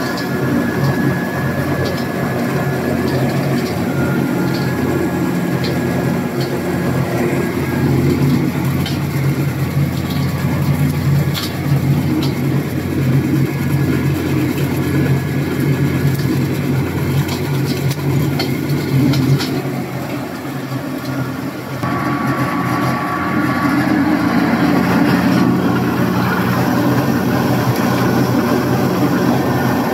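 Rice milling machinery running: electric-driven husker and whitening machines and a vibrating sieve humming steadily, with scattered light ticks. The sound changes abruptly about two-thirds of the way through.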